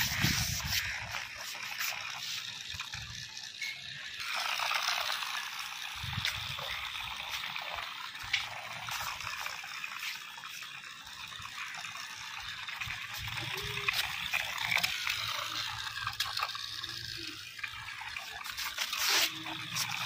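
Small plastic DC gear motor of a battery-powered toy tractor whirring as it drives, with its plastic wheels rolling over rough concrete. The sound is a gritty, rushing whirr that swells and fades as the toy moves, with a few light clicks.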